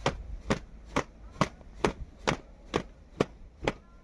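Rhythmic knocking of a kitchen tool striking food, nine even strikes at about two a second, as in chopping or pounding ingredients for churma.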